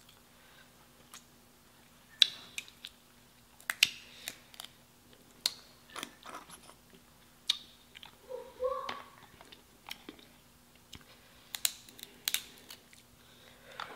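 Boiled crab legs being cracked and pulled apart by hand close to the microphone: irregular sharp snaps of shell, mixed with chewing of the crab meat.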